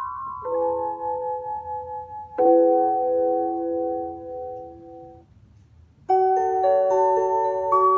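Casio CPS-201 electronic keyboard playing slow, sustained chords. The last chord dies away about five seconds in. About six seconds in the playing resumes in a brighter, bell-like voice, with a melody over held chords.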